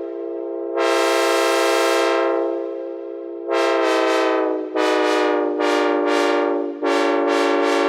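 Synthesized Nathan K5LA five-chime locomotive air horn sounding a steady chord. It gives one long blast, then from about halfway a rapid string of short blasts, each with a bright attack.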